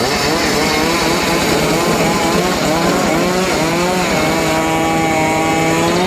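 Engine-powered saw cutting wood, its pitch dipping and recovering under the load of the cut, then running steadier from about four seconds in.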